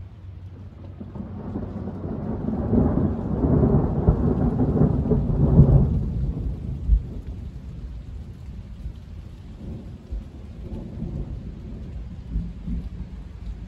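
Rolling thunder: a deep rumble swells over the first few seconds, is loudest a few seconds in, then dies away into a fainter, uneven rumble.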